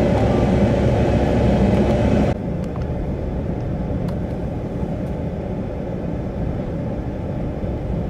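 Strong wind blowing and buffeting the microphone. A little over two seconds in, the sound drops abruptly to a quieter, duller rush.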